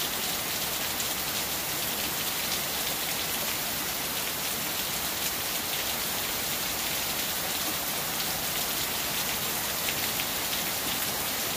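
Steady heavy rain falling, streaming off the edge of a roof.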